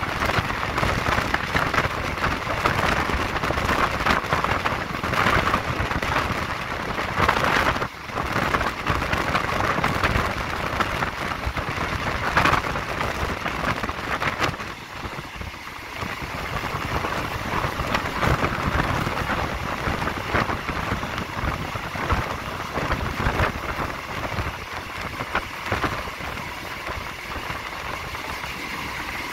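Passenger train running along the track, heard from an open carriage window: a steady rush of wind and wheel-on-rail noise, with a brief dip about eight seconds in.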